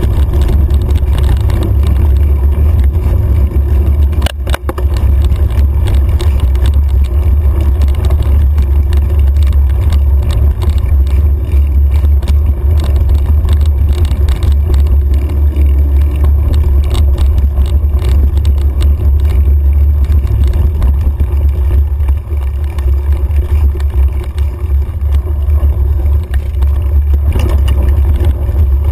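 Steady low rumble of wind buffeting the microphone of a camera mounted on a moving mountain bike, with the tyres rolling over a dirt and gravel road and frequent rattles and ticks from the bike. A sharper knock, a jolt over the ground, about four seconds in.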